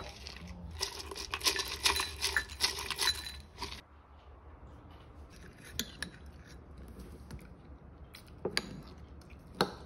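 Dishes and cutlery clinking and clattering for about three seconds, then a few separate clinks.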